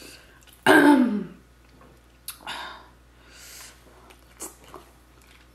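A woman sneezes once, loudly and sharply, about a second in, her voice dropping in pitch. Fainter breaths and a few light clicks follow.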